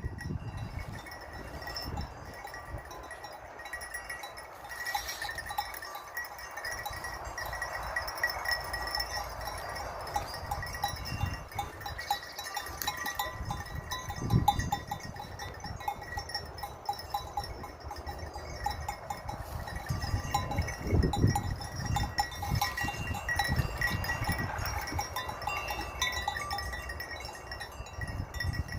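A flock of Chios sheep with bells clinking steadily as they move, with some bleating. Occasional low rumbles rise under the bells.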